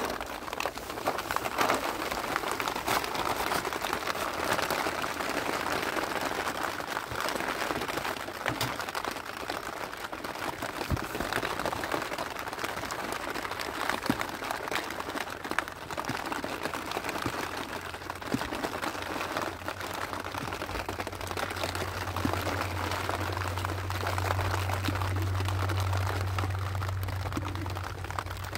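Steady rain pattering, with many small ticks scattered through it. A low steady drone comes in about twenty seconds in.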